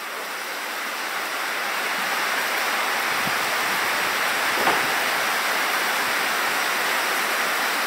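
Heavy rain on the barn roof: a steady, even rushing.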